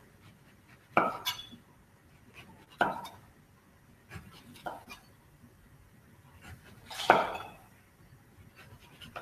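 Chef's knife cutting the peel off a pink grapefruit and knocking down onto a wooden chopping board, four separate cuts a couple of seconds apart.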